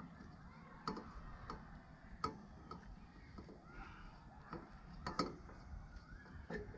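Scattered sharp metal clicks and light taps from hand work on a riding-mower deck's blade-brake pad, the loudest about a second in, two seconds in and five seconds in.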